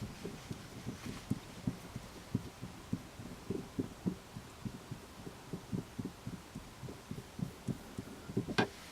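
Soft, irregular low knocks and thuds, two or three a second, from hands twisting the stock shift knob off the shifter, with one sharper click near the end.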